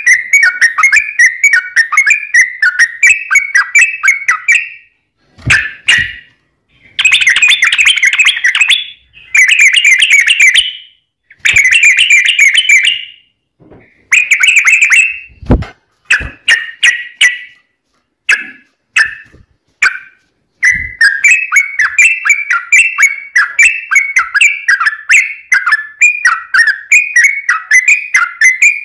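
Yellow-vented bulbul singing: a long run of quick, bubbling repeated notes, broken up in the middle by several shorter bursts of song and a few clipped chirps, then another long rapid run near the end.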